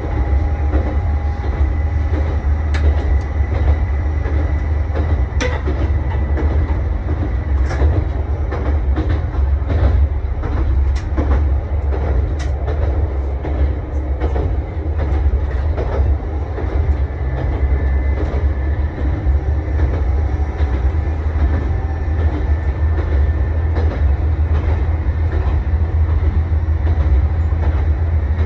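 Nagara River Railway diesel railcar running along the track: a steady low engine drone with a faint steady whine above it, and a few sharp clicks from the wheels on the rails in the first half.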